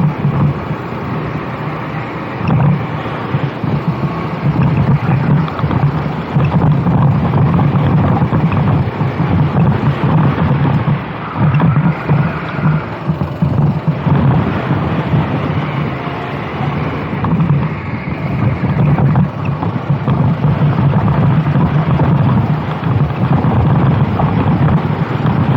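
Racing kart engine heard onboard at speed, its loud note rising and falling with the throttle as the kart goes through corners, with wind buffeting the microphone.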